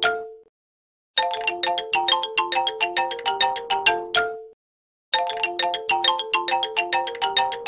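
A short, ringtone-like jingle of quick, plinking, bell-like notes. The tune lasts about three seconds, stops, and starts over about a second in and again near the middle.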